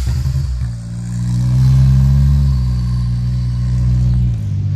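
Off-road vehicle's engine running while it warms up, its pitch and level rising gently about a second and a half in and settling back. It stops suddenly at the end.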